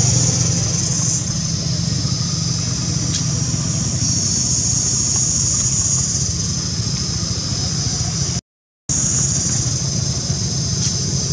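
Steady outdoor background noise: a low engine-like hum with a high, steady buzz above it. The sound cuts out completely for about half a second near the end.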